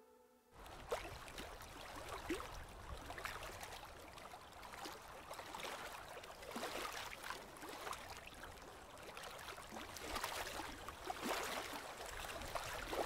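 Faint water sound, gentle splashing and gurgling like small waves lapping, beginning about half a second in.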